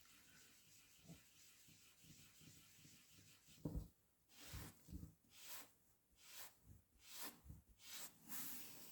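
Faint rubbing of an old trading card's surface during cleaning: after a few quiet seconds, about ten short strokes, one every half second or so.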